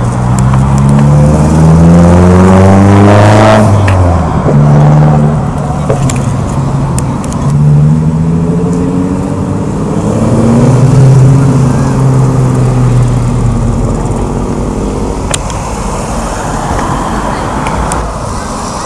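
A car engine revving hard under acceleration: the pitch climbs for about four seconds, drops sharply as it changes gear, then climbs again in steps before easing off and fading toward the end.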